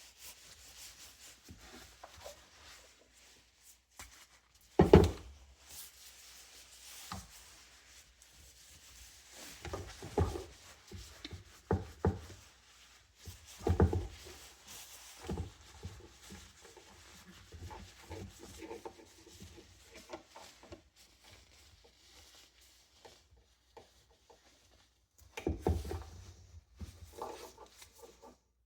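Parts of a 1990s Windmere box fan being handled and fitted during reassembly: scattered knocks and clatter with rubbing and scraping in between, the loudest knock about five seconds in.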